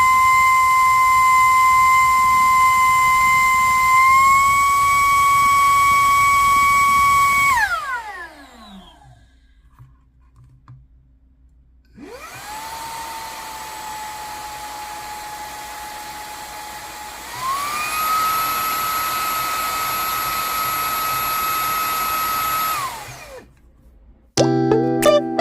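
Handheld car vacuum cleaner running with a high motor whine, its pitch stepping up slightly about four seconds in, then switched off and spinning down with a falling whine. A few seconds later a car vacuum starts again more quietly, switches to a higher, louder power setting partway through, and spins down again near the end.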